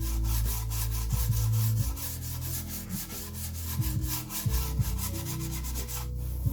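Electronic music with held bass and synth notes that change every second or so, under a fast, hissing rhythm of close-spaced strokes.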